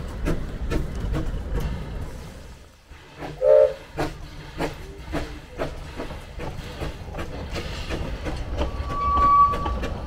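Steam locomotive under way: a short, loud blast on its whistle about three and a half seconds in, over a steady low rumble with repeated clicking of wheels on the rails. A thin high tone sounds briefly near the end.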